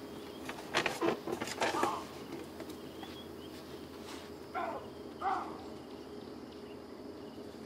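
Wildlife sound-effect track: a steady insect-like drone with short animal calls a little before one second, near two seconds, and twice around the middle.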